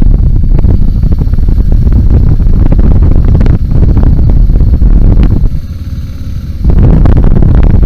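BMW G 650 GS single-cylinder motorcycle engine running under way, heavily mixed with wind buffeting on the microphone. The noise drops away for about a second roughly two-thirds of the way through, then returns.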